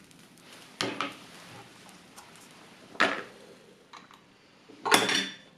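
Light metallic clinks and knocks as a small aluminium alcohol stove and its wire pot stand are handled with pliers after the burn. There are three separate knocks, and the loudest comes near the end.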